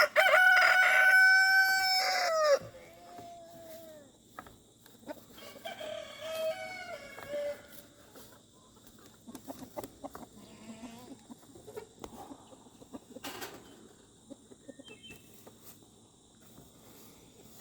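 A rooster crowing once, loud and held for about two and a half seconds, dropping in pitch at the end. Two fainter crows follow from farther off, then only faint scattered clicks and rustles.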